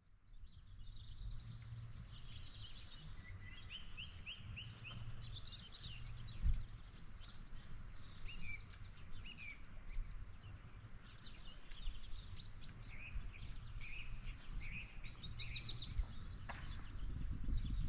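Small birds chirping and singing in short calls and quick trills, over a steady low rumble, with a brief low thump about six and a half seconds in.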